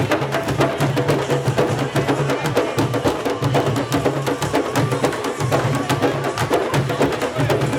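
Candombe drum group playing: wooden barrel drums beaten with stick and hand, a dense run of sharp, woody stick clicks over the low boom of the drums.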